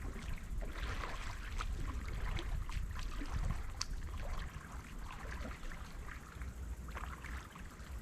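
Water splashing and trickling lightly, with many small irregular splashes, as of someone moving in the shallows of a lake.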